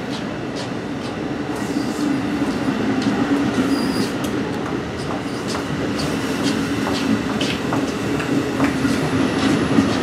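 A New Jersey Transit bilevel passenger train rolls past along the platform. Its wheels click irregularly over the rail joints above a steady low hum, getting slightly louder as it goes.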